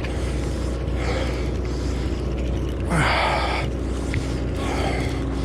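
Sportfishing boat's engine running with a steady low hum, with a loud rushing burst, like a hard breath or wind gust, about three seconds in.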